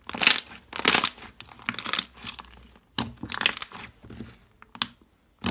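Thick white marshmallow fluff slime squeezed and pressed by hands, making crackling, squishy noises. The noises come in irregular bursts, loudest in the first second or so.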